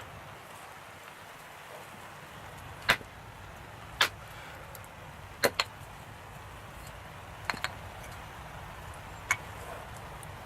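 Sharp knocks of firewood being split: seven strikes at uneven intervals, two of them in quick pairs.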